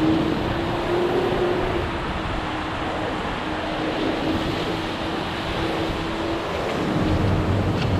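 Heavy rain pouring down in a steady dense hiss. A steady low hum runs underneath, and a deeper hum joins near the end.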